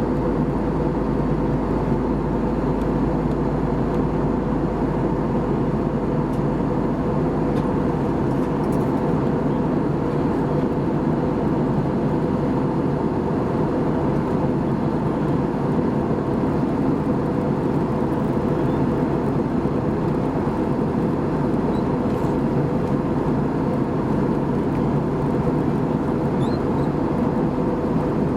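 Steady cabin noise inside an Airbus A320 in descent: the constant drone of the engines and airflow around the fuselage, with a faint steady tone running through it.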